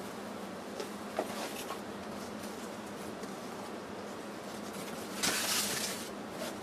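Paper and cardboard rustling as wrapped parts and the flaps of a cardboard box are handled, with a few light taps in the first couple of seconds and a louder rustle lasting about a second, some five seconds in, over a faint steady hum.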